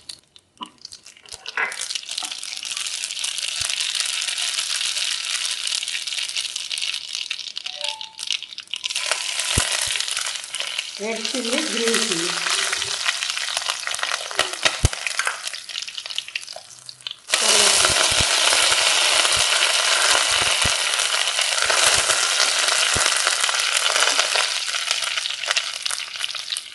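Mustard seeds, dals and dried red chillies sizzling and spluttering in hot oil in a stainless steel kadai as a tempering is fried and stirred with a silicone spatula. The sizzle gets suddenly louder about seventeen seconds in and stays so.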